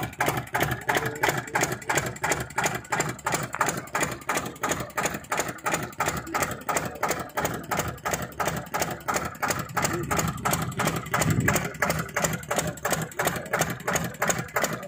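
Stationary diesel engine running steadily under load, driving a brick-kiln draught fan through a belt, with a regular beat of about five thumps a second.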